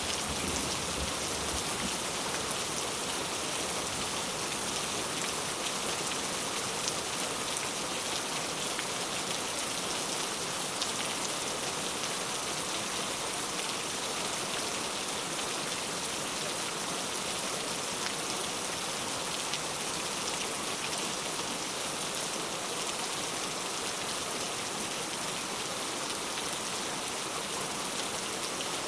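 Steady rain falling: an even, unbroken hiss with faint scattered drop ticks through it.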